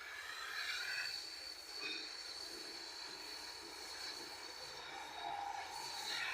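Gas torch flame hissing steadily, with a thin high whistle held throughout.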